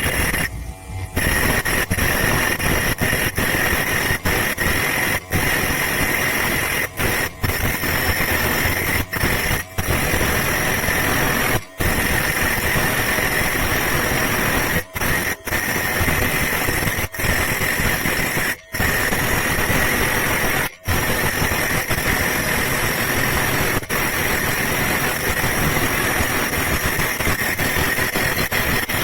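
Homemade angle grinder driven by an RS-775 DC motor, grinding with its disc against material: a loud steady hiss with a high whine on top. The sound is broken by many brief breaks.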